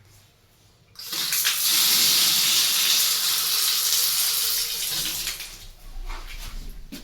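Water running hard from a bathroom tap, turned on suddenly about a second in and tailing off near the end, as the plumbing is tested.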